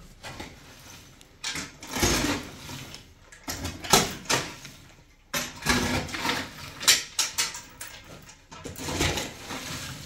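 Metal shovel blades scraping and digging through loose dirt and stones, in irregular strokes a second or two apart, some ending in a sharp knock.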